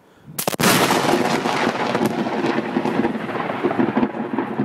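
Close lightning strike: a sharp, loud crack about half a second in, followed by heavy rolling thunder that rumbles on and slowly fades.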